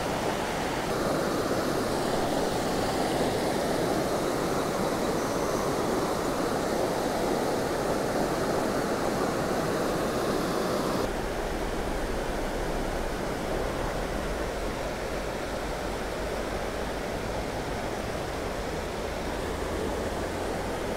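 Steady rushing of a shallow creek flowing over rocks and riffles.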